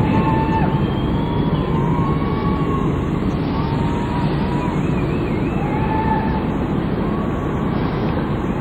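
Several ships' steam whistles and horns sounding together in a whistle salute. Tones of different pitches overlap, each starting and stopping on its own, and one warbles briefly about halfway through. Under them runs a steady low rumble.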